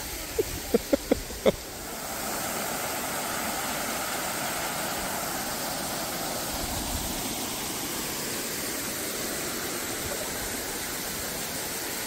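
Waterfall splashing steadily into a garden pond, a constant rushing of water. A few short sharp sounds come in the first second and a half, before the rush settles.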